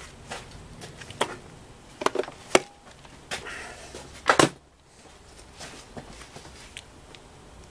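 Hand tools prying and scraping at a stubborn piece of a dismantled electronic EGR valve: a series of sharp clicks and knocks with a stretch of scraping between them. The loudest is a double knock about four and a half seconds in.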